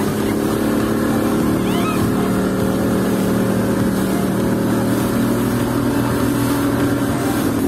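Yamaha 150 hp outboard motor running at a steady cruising speed while towing, with the rush of wake and wind over it.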